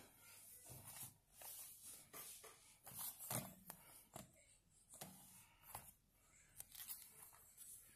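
Faint, scattered rustles and light knocks of a paper travel journal being picked up and handled.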